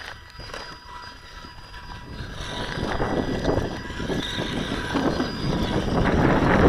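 Wind buffeting the microphone in uneven gusts, quiet at first and growing louder over the last few seconds, over a faint steady high whine.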